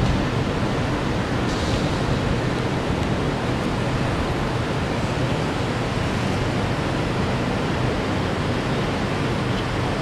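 Steady, even rushing noise of city traffic heard from high above the streets, blended into one continuous roar with no single sound standing out.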